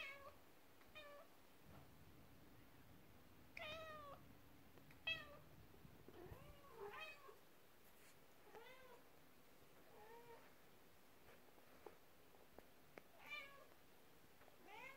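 Kitten giving a string of short, high-pitched meows, about ten in all, each one rising and falling in pitch.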